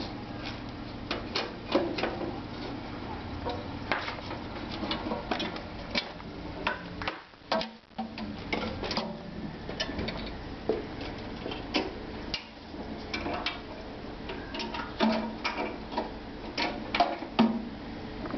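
Irregular clicks, taps and light metallic knocks from an aluminum three-wheeled folding cart being handled by hand, its frame, box and fittings knocking as it is unfolded and set up on its wheels.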